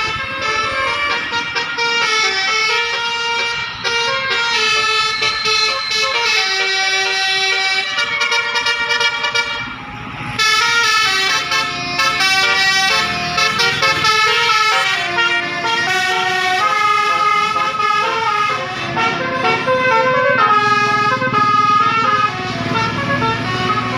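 Bus's Basuri multi-trumpet air horn playing a 'telolet' melody of held notes that step from pitch to pitch, with a brief break about ten seconds in.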